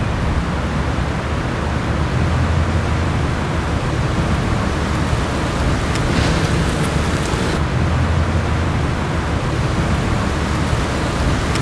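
Wind buffeting an outdoor camera microphone, a steady rushing noise with a heavy low rumble, as a car drives slowly close by; a brighter hiss rises about six seconds in and fades a second and a half later.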